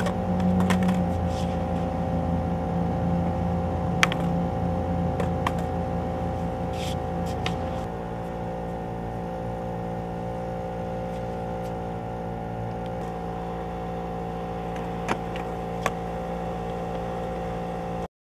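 Steady mechanical hum with a few sharp clicks; its lower rumble drops away about eight seconds in, and it cuts off abruptly near the end.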